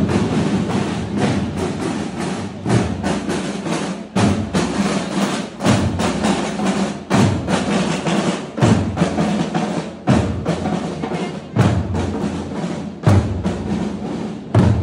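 Marching drum corps of snare drums and a bass drum playing a parade beat: continuous snare drumming with a heavy bass drum stroke about every second and a half.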